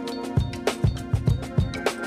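Background music with a drum beat: low kick-drum thumps and sharper snare-like hits over sustained instrument tones.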